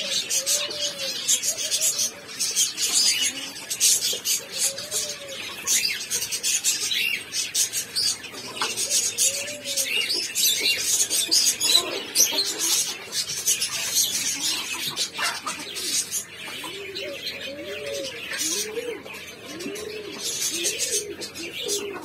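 A flock of zebra finches calling in an aviary: a dense stream of short, high chirps, mixed with lower arching coo-like notes that come more often near the end.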